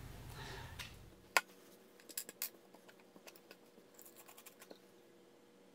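Light handling noises of PVC pipe and small PVC pieces: one sharp click about a second and a half in, then a scatter of faint clicks and scratches.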